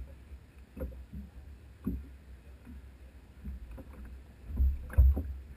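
Water slapping against the wooden hull of a moored race boat, with a few irregular dull thumps, the loudest about five seconds in.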